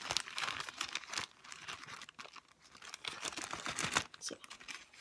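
Clear plastic bag crinkling and rustling as it is handled, with irregular crackles and a few sharper snaps.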